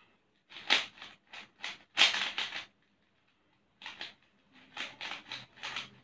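A 3x3 Rubik's cube being turned by hand, its plastic layers clacking and scraping in quick runs of turns, with a pause of about a second in the middle.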